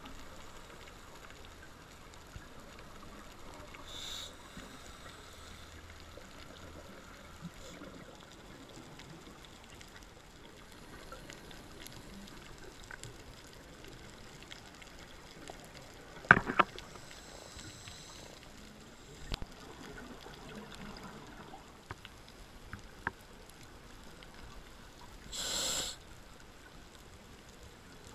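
Underwater ambience on a scuba dive: a low, even hiss with scattered small clicks. There is a cluster of sharp knocks about two-thirds of the way through, and two short hissing bursts of bubbles, one a few seconds in and one near the end.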